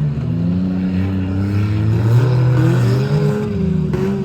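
Several demolition derby car engines revving at once. Their pitches rise and fall as the cars accelerate and slow around the race course.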